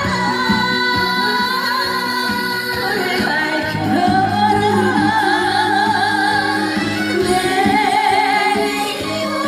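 A Korean trot-style song: a singer holds long, wavering notes with vibrato over a full backing accompaniment.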